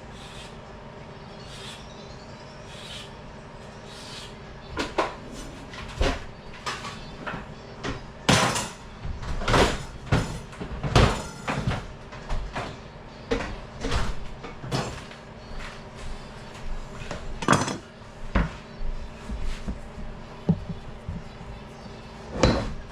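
Irregular knocks and clunks of kitchen handling, like cupboard doors and pans being moved, over a steady low hum. The knocks begin about four seconds in and come every second or two.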